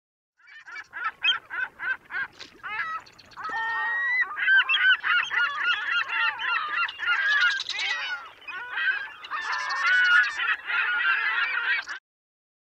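A flock of birds calling, at first separate calls about three a second, then many calls overlapping one another; the sound cuts off suddenly near the end.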